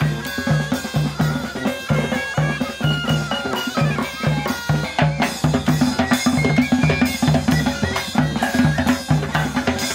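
Folk band playing outdoors: a bagpipe melody over a tuba bass line and drums, in a steady beat.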